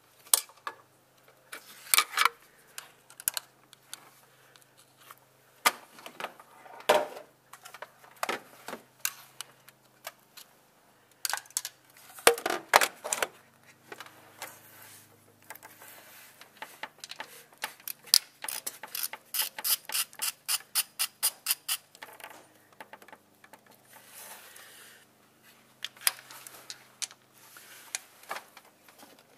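Hand socket ratchet clicking as bolts on the timing chain tensioner are undone, with scattered metallic clinks and knocks of tools. About two-thirds of the way in the ratchet clicks in a steady run of about five clicks a second.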